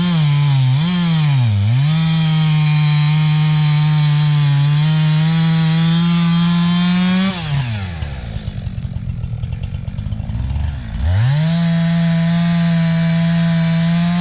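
Chainsaw engine revved to full throttle and held while cutting wood, with two quick blips at the start. It drops to idle about seven seconds in and revs back up to full throttle about eleven seconds in.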